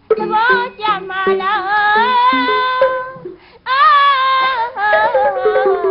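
A woman singing a Burmese song in an ornamented style, her voice wavering and sliding between long-held notes, with a brief break a little past halfway. Lower, steadier instrumental notes accompany her.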